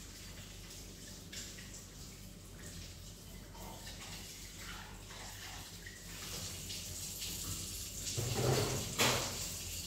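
Tap water running into a kitchen sink while dishes are washed, with light clatter. Near the end there is a louder stretch and one sharp knock.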